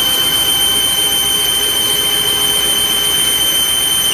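Metal lathe running and cutting a large aluminum workpiece: a steady high-pitched whine over the machine's even running noise.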